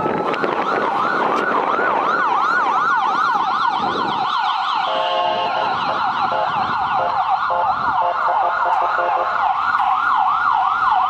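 Electronic yelp siren sweeping rapidly up and down in pitch, about four sweeps a second, at a steady level. About five seconds in it switches briefly to a stepped warble, then goes back to the yelp.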